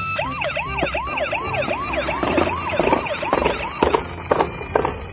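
Toy police car's electronic siren playing through its small built-in speaker: a fast yelping wail, about three rises a second, which stops about four seconds in. A few sharp clicks follow near the end.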